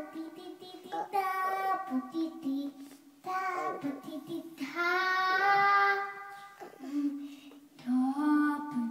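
A young boy singing opera into a handheld microphone, in several phrases with short breaths between them; the longest note, held for over a second, comes about five seconds in.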